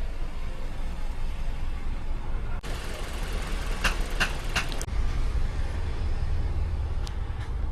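Car engine idling with a steady low rumble, and a few sharp clicks about four seconds in.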